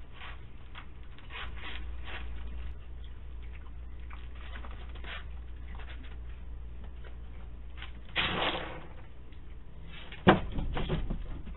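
Soft ticks and scratches of animals feeding on kibble on a wooden porch, over a steady low hum. A short scuffle comes just after 8 s in. About 10 s in a sharp knock, the loudest sound, is followed by scraping and rattling as a raccoon climbs onto a wooden feeding stand.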